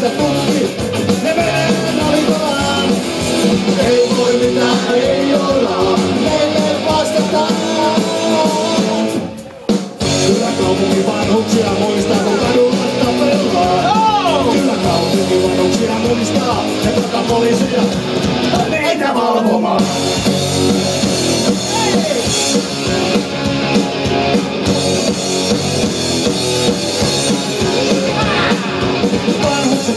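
Live punk rock band playing: electric guitars, bass and drum kit with sung vocals. The band stops briefly about a third of the way in, then comes back in.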